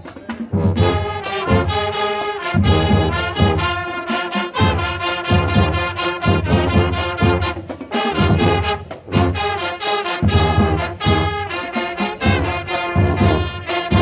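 Marching band playing a brass piece: trumpets, trombones and sousaphones over snare and bass drums, with regular drum strokes under the melody.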